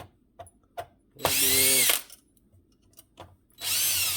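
Electric screwdriver running in two short bursts to back out screws, its whine falling in pitch as it winds down at the end of the second burst, with small clicks of handling in between.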